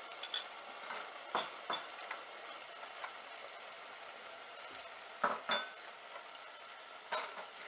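Thick tomato-and-vegetable sauce sizzling in a saucepan while a spoon stirs in ketchup, with a steady hiss and several sharp knocks and scrapes of the spoon against the pan, the loudest a pair about five seconds in.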